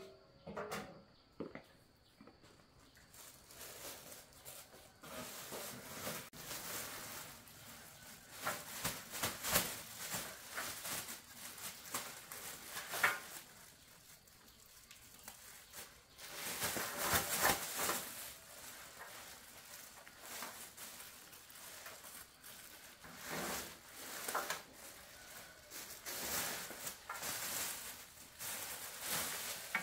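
Irregular rustling and scraping handling noises with a few sharper clicks, coming in louder clusters.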